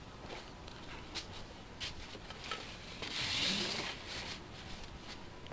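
Small metal screws and nuts clicking and rattling as hands sort through a parts box, with a rustling, shuffling sound about three seconds in that lasts about a second.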